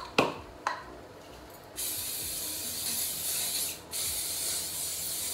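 Aerosol olive oil cooking spray hissing in two long bursts, with a brief break between them a little under four seconds in. Two light clicks come first, about half a second apart.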